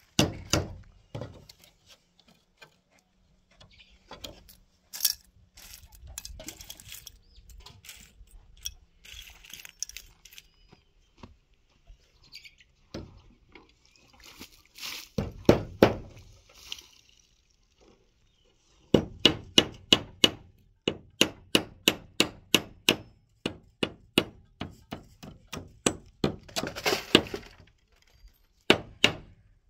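Scattered knocks and clatter, then from about two-thirds of the way in a steady run of sharp strikes, about three a second, some with a short ring.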